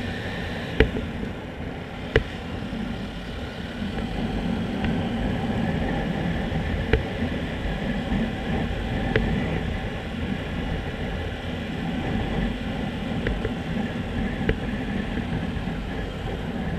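Motorcycle engine running at a steady cruise, with road noise and low rumble from riding, growing somewhat louder about four seconds in. A few sharp knocks sound through it, the two loudest within the first couple of seconds.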